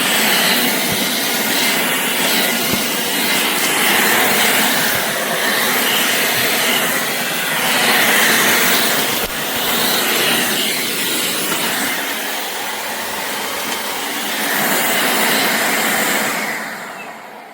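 Shark Clean & Empty cordless vacuum motor running with a loud airy rush that swells and eases in level, then starts to wind down near the end.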